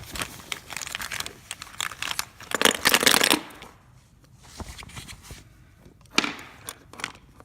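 Rustling and crinkling of a bag being handled and rummaged through for rolls of film, loudest about three seconds in, then quieter handling with a couple of sharp clicks.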